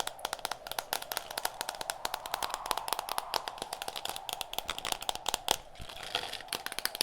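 Rapid fingertip and fingernail tapping on hard objects: many quick clicks a second in a dense, uneven flurry that briefly lets up about six seconds in. Under it runs a steady background track of wind.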